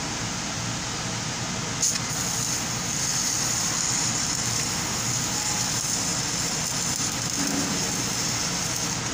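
Stick-welding arc struck with a sharp click about two seconds in, then crackling and hissing steadily as the rod burns, stopping near the end. A steady background rumble of shop noise runs underneath.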